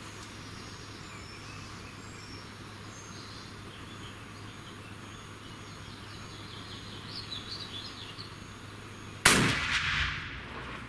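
One shot from a Heym 88B double rifle in .500 Nitro Express, a single sharp, loud report about nine seconds in. It rings on and dies away over about a second in the indoor range. Before it there is only a quiet background with a few faint high chirps.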